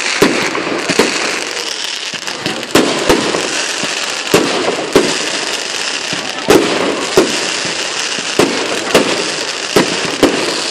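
Fireworks going off: about a dozen sharp bangs at irregular intervals over a continuous hiss.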